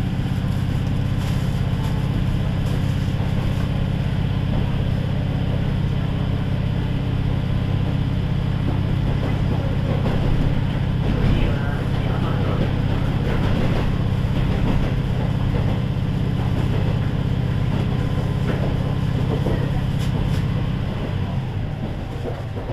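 KiHa 40 series diesel railcar (KiHa 40-587) running, its diesel engine making a steady low drone with wheel-on-rail noise. The sound eases off slightly near the end.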